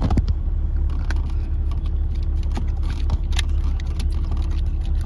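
Steady low hum of the running Porsche 911 (996), heard from inside the cabin, with scattered light plastic clicks and taps as the A/C control unit's faceplate and loose buttons are pressed back into place.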